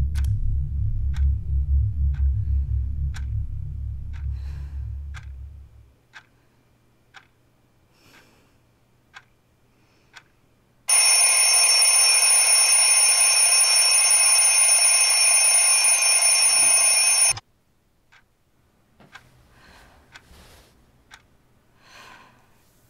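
A low pulsing drone fades away over the first six seconds, leaving a clock ticking about once a second. About eleven seconds in, a phone rings loudly and shrilly without a break for about six seconds, then cuts off suddenly.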